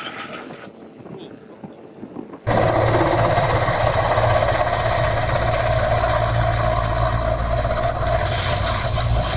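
After a couple of fairly quiet seconds, an abrupt cut brings in the loud, steady running of a low-flying Mil Mi-17-type helicopter: a constant low hum with a steady mid-pitched whine over a hiss.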